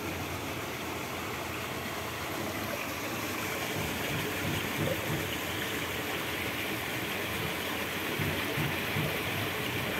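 Steady rush of water pouring from an inflow pipe into a fish pond, with a few low bumps in the second half.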